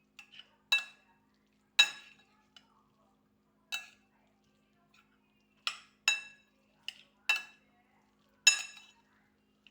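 Cutlery clinking against a dish while instant fried noodles are stirred and mixed with their seasoning: about nine sharp, irregular clinks, each ringing briefly.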